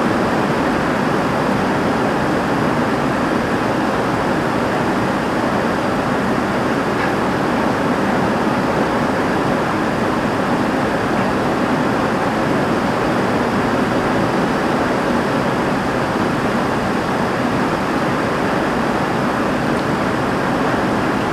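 Heavy rain pouring steadily on a roof, an even rushing hiss of countless drops with water running off.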